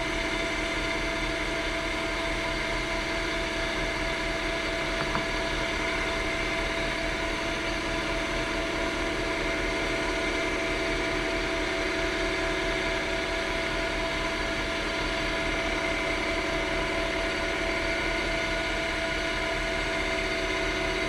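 Wood lathe running steadily at speed, its motor giving a constant hum and whine with a pen blank spinning between centres while it is polished with a cloth and diamond paste.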